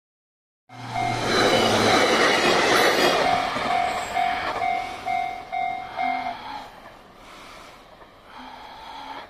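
Electric multiple-unit train running past, loudest in the first few seconds, with a level crossing's electronic warning bell ringing about twice a second. The bell stops a little after six seconds in and the train noise dies away.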